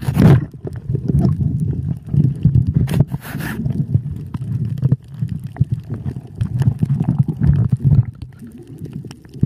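Muffled underwater rumble of water churning against a moving camera, with a few short bubbly bursts.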